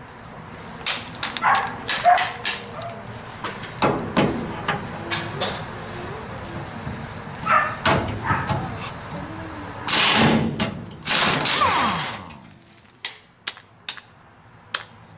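Air-powered impact wrench running in several short bursts on a bumper bracket bolt, the longest two near the end, with sharp clicks and knocks of the tool and socket against the steel bracket in between.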